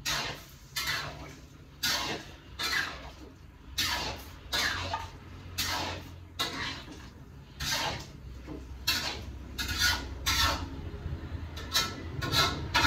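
A spatula scraping and stirring tofu and tempeh in a pan, in short repeated strokes roughly once a second, over a low steady hum.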